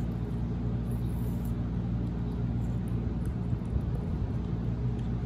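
Steady low machine hum with a few faint, light ticks about a second in.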